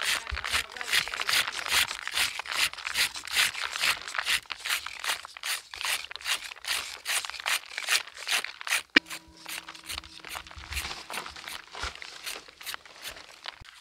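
A small knife scraping the ridged skin off bitter gourds in quick, gritty strokes, about four a second. A sharp click comes about nine seconds in, after which the strokes are fainter and a faint low steady tone sounds for a few seconds.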